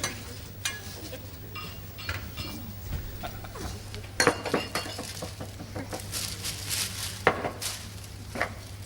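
Scattered light clinks and knocks of tableware, some ringing briefly, over a steady low hum.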